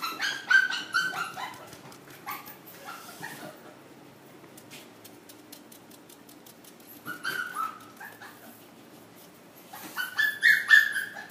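Labrador retriever puppy whining in short, high-pitched yips. They come in bursts: several at the start, a few about seven seconds in, and a louder run near the end.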